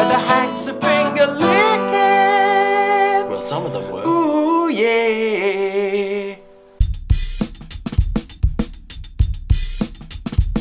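Acoustic guitar strummed under a man's sung, drawn-out final notes, which end about six and a half seconds in. It is cut off abruptly by drum-kit music with a steady beat.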